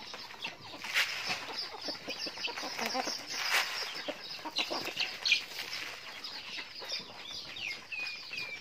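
A flock of chickens feeding: hens clucking and chicks peeping in a continuous stream of short, falling high calls, with a few sharp taps.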